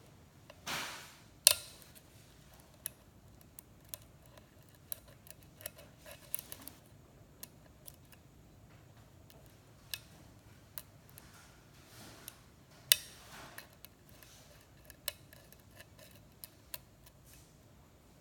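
Lock pick and tension wrench working a six-pin Schlage-style pin-tumbler lock cylinder: irregular small metallic ticks and clicks as the pins are worked, with short scrapes and two sharper clicks, about a second and a half in and about thirteen seconds in.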